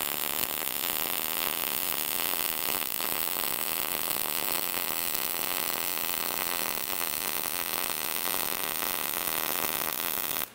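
Short-circuit MIG welding arc on 14-gauge sheet metal, with the wire feed speed turned down to 160 inches a minute: a steady, even crackle, the sign of good, stable short-circuiting transfer.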